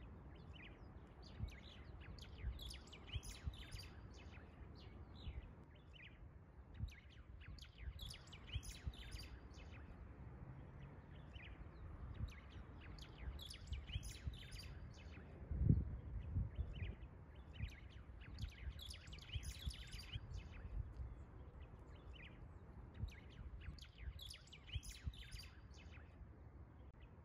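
Birds chirping and calling, many short high chirps scattered throughout, over a faint low rumble, with one louder low thump about 15 seconds in.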